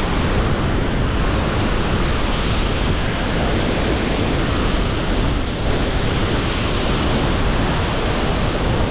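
Waterfall's falling water, a loud, steady rush heard close up in the spray.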